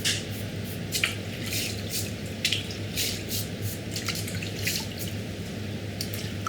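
Salt water splashing and dripping as an octopus is washed by hand in a tub of brine, in short irregular splashes about twice a second, over a steady low hum.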